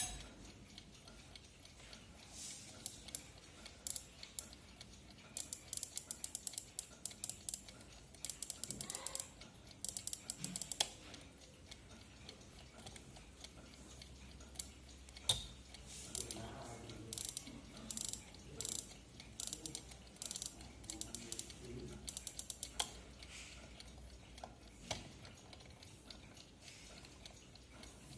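1940s JaZ mechanical alarm clock being wound: runs of rapid ratchet clicks from the winding key, each lasting about a second with short pauses between, and a few single clicks.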